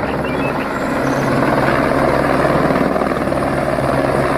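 Light helicopter hovering low, its main rotor beating in a rapid, even chop over a steady engine hum.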